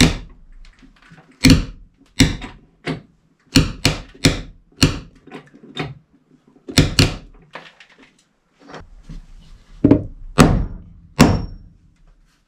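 Hammer blows on wooden framing lumber, knocking a board into line. The blows come in quick runs of three to five at about three a second, with pauses between.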